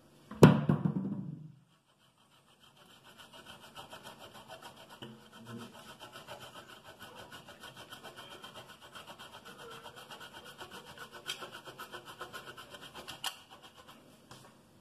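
A single loud knock about half a second in, then cheese being grated on a metal box grater: a steady run of quick scraping strokes, about five a second.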